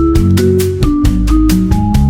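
Background music: an upbeat electronic track with a steady beat, bass and a stepping melody.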